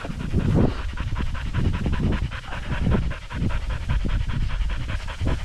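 Hunting dog panting fast and hard, close to the microphone, with a low wind rumble underneath.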